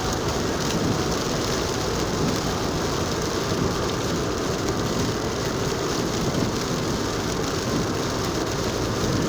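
Steady road noise heard inside a moving car's cabin at highway speed: tyres on wet pavement, with rain or sleet falling on the car.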